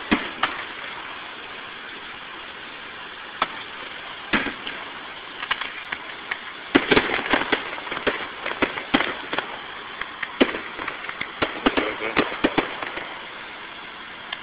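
Aerial fireworks shells bursting: single bangs a few seconds apart at first, then rapid runs of bangs and crackle about seven seconds in and again near the end.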